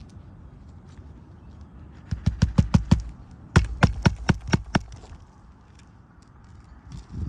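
Hammer driving roofing nails into an asphalt shingle, in two rapid runs of about seven or eight blows each, with a short pause between them.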